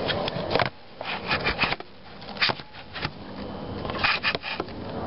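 Irregular clusters of clicks, knocks and rustling: handling noise close to the microphone.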